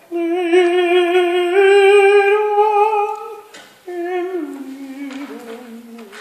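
A voice sings a wordless melodic phrase in long held notes with vibrato, stepping up once. It breaks off briefly, then comes back lower and falls further, and a second, higher line joins near the end.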